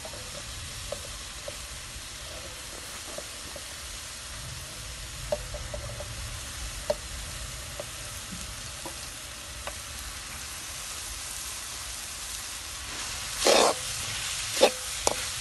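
Tempered spices sizzling in oil in a large wok-style pan (thachchi) as cooked rice goes in: a steady hiss with scattered small clicks. About 13 seconds in, a spoon starts scraping and knocking against the pan as the rice is mixed through.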